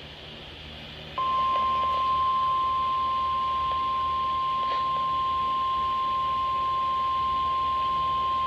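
NOAA Weather Radio's 1050 Hz warning alarm tone, a single steady tone that starts about a second in over faint receiver hiss. It signals that a warning, here a severe thunderstorm warning, is about to be read.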